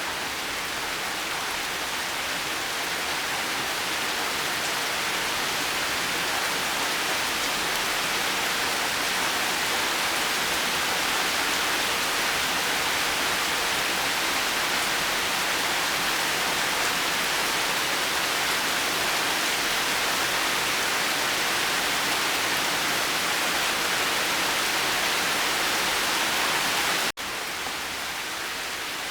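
Steady rain falling, an even hiss. It cuts out for an instant about 27 seconds in and comes back slightly quieter.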